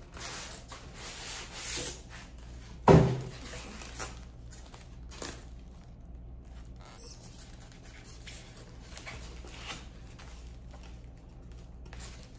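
Hands scraping and picking at the taped seams of a cardboard box, with rubbing and small knocks of the cardboard, and one loud thump about three seconds in.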